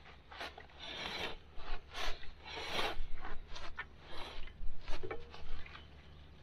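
Steel trailer axle dragged and slid over dry dirt and grass: irregular scraping strokes with a few sharp knocks.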